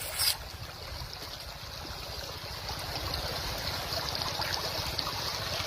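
Water trickling and splashing steadily, with a short sharp splash right at the start.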